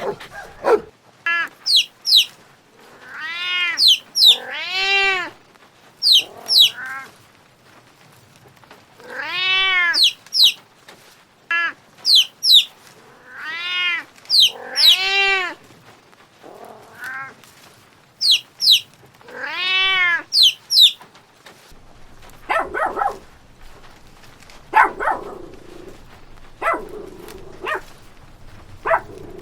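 Repeated drawn-out animal calls, each rising and then falling in pitch, with pairs of short high chirps between them; shorter, rougher calls follow near the end.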